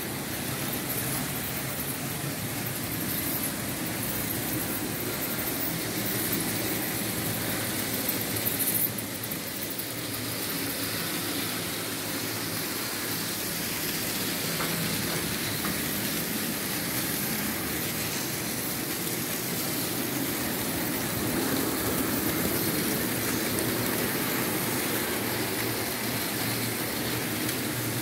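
Märklin H0 model trains running on the layout: a steady whirr of the small electric loco motors and the running noise of wheels on metal track, briefly louder about nine seconds in.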